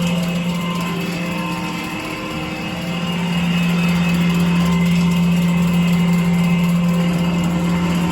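Nilfisk Advance SC1500 REV floor scrubber running with a steady mechanical hum and whine. It drops in level about two seconds in and comes back up near three seconds. This is the weird, bad sound the owner hears as abnormal.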